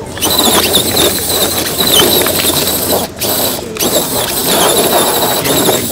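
Radio-controlled scale rock crawler's electric motor and gears whining as it climbs over rocks, the pitch rising and falling with the throttle and cutting out briefly twice a little after three seconds in.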